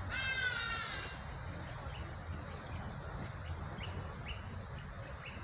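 A short pitched call, falling slightly and lasting under a second, opens; then small bird chirps come scattered throughout over a steady low rumble of background noise.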